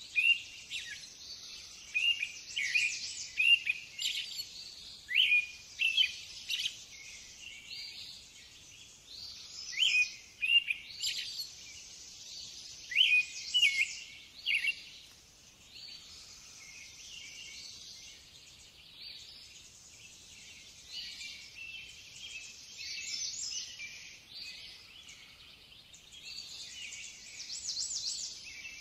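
Small birds chirping and singing: quick clusters of high calls that come thick in the first half and grow sparser and fainter after about fifteen seconds.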